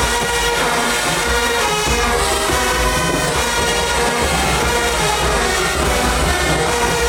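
Marching band playing loudly, brass sustaining chords over a steady low bass and drum pulse.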